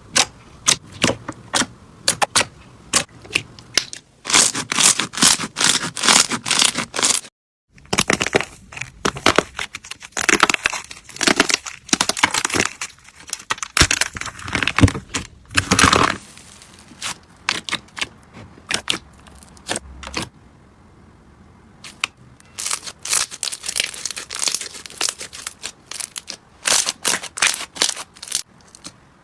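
Slime being squeezed, stretched and poked by hand, giving a run of sharp clicks and pops with denser crackling spells. It breaks off once for a moment near the middle and goes quieter for a few seconds later on.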